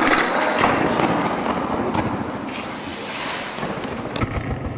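Skateboard wheels rolling on the concrete wall of a large pipe, an echoing roar that is loudest at the start and fades, with a few knocks near the end.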